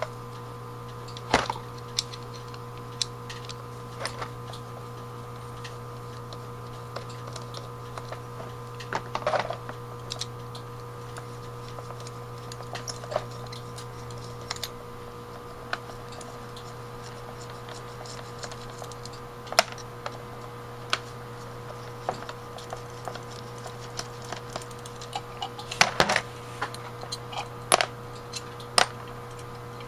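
Irregular light clicks and taps of a screwdriver and small metal parts against a disassembled Autolite 1100 carburetor body and a plastic parts tray as the float bowl top screws are backed out, with a quick flurry of clicks late on. A steady low hum runs underneath.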